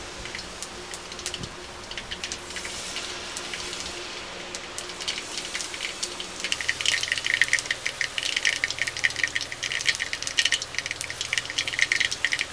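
Hot oil in an iron karahi crackling and sizzling as battered fritters deep-fry. The crackle grows denser and louder about halfway through as more pieces are dropped into the oil.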